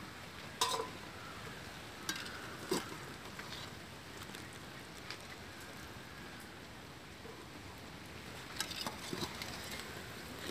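Large aluminium pot of water bubbling at the boil, with a few light clinks of a wire-mesh strainer against the pot as spiral-cut potato slices are dipped in, several of them close together near the end.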